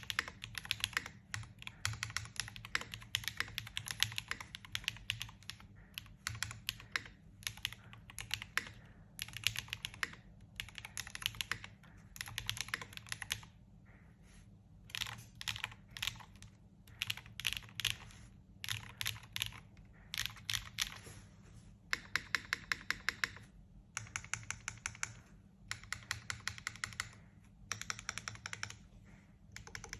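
Typing on a Not Defined TKL custom mechanical keyboard with a 1.6 mm PCB: fast runs of keystrokes in bursts of a second or two, broken by short pauses.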